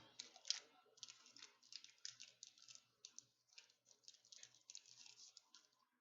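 Faint, quick, irregular clicking and rustling of a Pokémon booster pack's foil wrapper and trading cards being handled.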